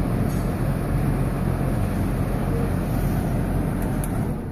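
Six-blade whole house fan running overhead: a steady rush of moving air with a low rumble. It gets a little quieter near the end.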